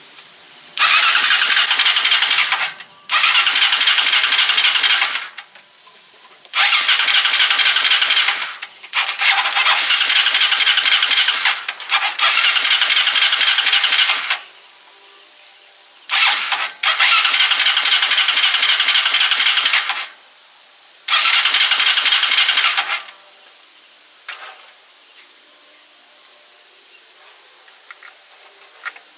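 Cargo tricycle's engine being cranked by its electric starter in about eight bursts of two to three seconds with short pauses, never catching. The engine does not start.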